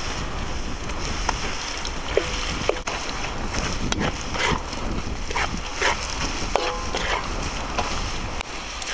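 Chillies, onion and spice paste sizzling in oil in a large steel wok, with a metal spatula scraping and clinking against the wok as it stirs, giving a few short ringing scrapes.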